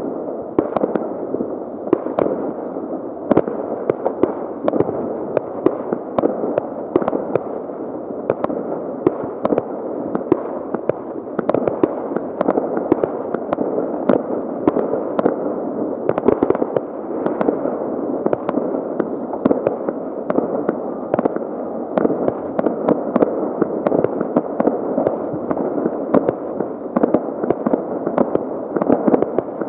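Many fireworks and firecrackers going off at once: a continuous wash of overlapping bangs and crackles, with frequent sharper pops standing out throughout.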